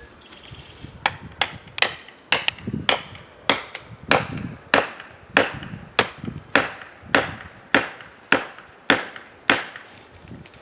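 Repeated strikes driving a felling wedge into the back cut of a tree to tip it over. About seventeen sharp blows come unevenly at first, then settle into a steady beat of under two a second.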